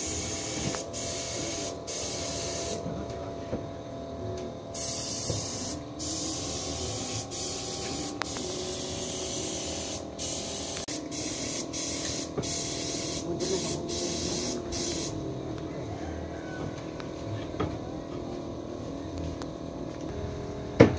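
Compressor-fed paint spray gun hissing in repeated bursts, the trigger pulled and released every second or two, until the spraying stops about fifteen seconds in. A steady machine hum runs underneath.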